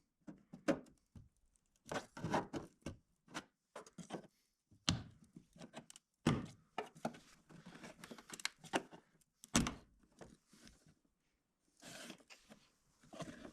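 Plastic side-scoop retaining clips on a 1999 Ford Mustang being pried with a trim tool, a run of irregular sharp clicks, pops and knocks as the clips release and one breaks, with louder knocks about five, six and nine and a half seconds in.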